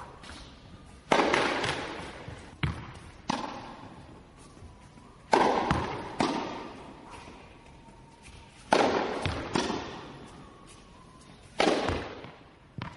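Tennis ball struck by rackets in a rally: sharp pops, each followed by a long echo, with a louder stroke every three to four seconds and softer impacts in between.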